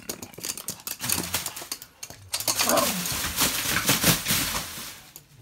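Plastic air-cushion packaging crinkling and rustling under a small dog's paws as it runs across it, mixed with quick clicks of steps on the tile floor; the rustling is loudest from a little before halfway and dies down near the end.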